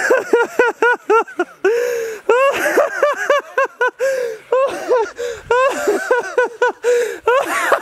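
High-pitched breathless laughter in quick repeated whoops, about three or four a second, running on with hardly a pause.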